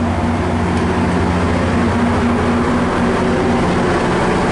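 A MARC commuter train's diesel locomotive passing close by, its engine running with a steady low hum over the noise of the wheels on the rails.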